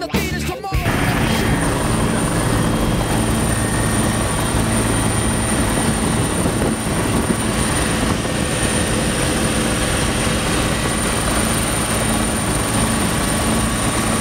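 Bell 412 helicopter in flight, heard from inside the cabin: steady rotor and turbine noise with a low hum and a thin, high, steady whine over it. This takes over when music cuts off about a second in.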